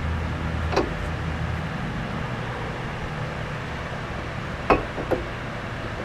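A few short, sharp metallic clinks of parts and tools being handled during brake work, the loudest a little before the end, over a steady low hum that fades about two seconds in.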